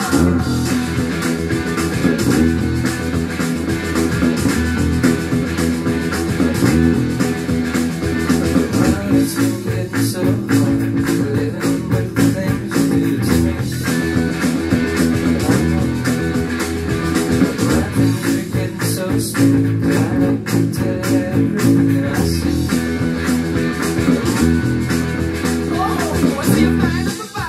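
An electric bass guitar, a Fender, played along to a rock recording with drums and guitar. The bass line runs without a break.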